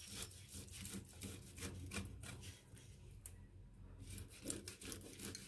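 Boiled potato being grated on a stainless-steel box grater: faint, repeated rasping strokes, with a brief pause about three seconds in.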